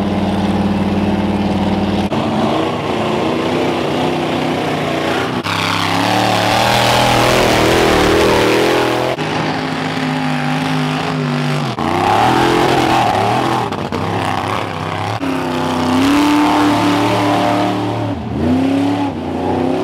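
Lifted mud trucks' engines revving hard through a mud pit, the pitch climbing and dropping with the throttle, with a rushing hiss of mud spray during the hardest pull. The sound changes abruptly several times as separate runs follow one another.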